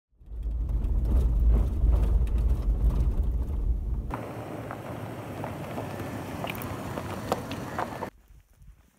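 A Toyota 4Runner driving on a rough gravel track. A heavy low rumble runs for about four seconds, then a lighter hiss of tyres on gravel with small stones clicking and popping. It stops abruptly about eight seconds in.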